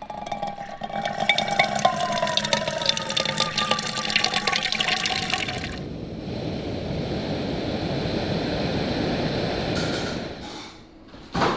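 Tap water splashing into a small metal cooking pot in a stainless steel sink as it fills. About six seconds in it gives way to a steady hiss from a Jetboil gas canister stove burner, which lasts about four seconds. A single short, loud sound comes near the end.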